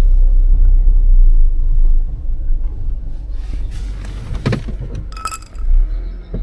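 Car road noise: a low rumble that eases off about two seconds in. A few short knocks and a brief high tone follow near the end.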